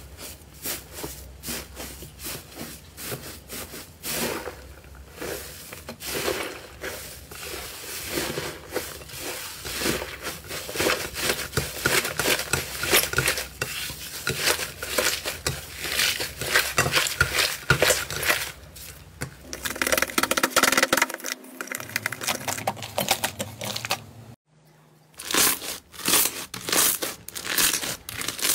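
Hands squishing, pressing and kneading slime, giving a dense run of wet crackles and pops. The sound breaks off briefly near the end, then picks up again as a slime full of foam beads is pressed.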